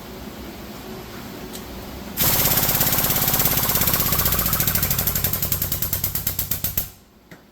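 Hydraulic press pump running in a rapid chattering rhythm about two seconds in, as the press builds pressure to form a rib into the sheet-steel panel; the pulses slow toward the end and then stop.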